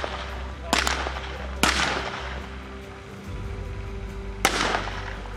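Rifle shots on a firing range: two in quick succession about a second in, another just after, and a last one near the end, each with a short echoing tail.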